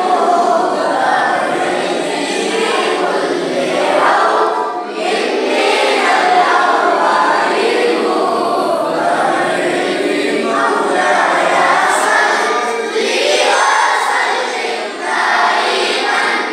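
A large group of boys chanting a devotional qasida together, unaccompanied voices in unison, in long phrases with brief breaks between them.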